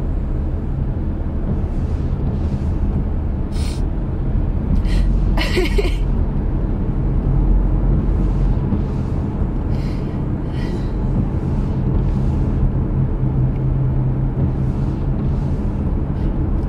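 Steady low road and engine rumble inside a moving car's cabin, with a few short breathy hisses about four to six seconds in.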